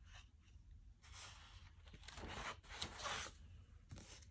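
Faint rustle of paper as a page of a disc-bound planner is turned, a soft swishing sweep lasting a couple of seconds, followed by a few light taps near the end as the page is laid flat.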